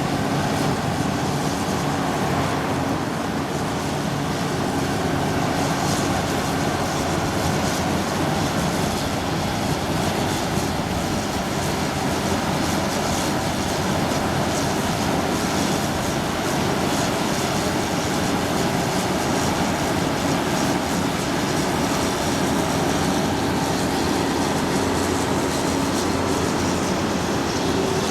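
Combine harvester running steadily at work, its engine and threshing machinery giving a constant drone with a few steady tones under an even rush of noise.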